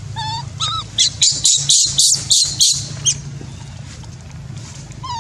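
Baby macaque crying: a few short, high wavering calls, then about a second in a quick run of about seven loud, harsh squealing screeches, easing to softer calls after about three seconds.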